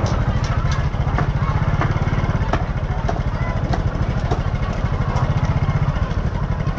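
Small motorcycle engine running close by, a steady low pulsing, with scattered sharp clicks and clatter over it.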